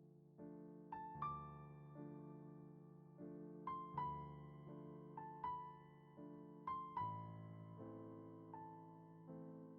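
Soft background piano music: slow sustained chords with a gentle melody of struck notes that ring and fade.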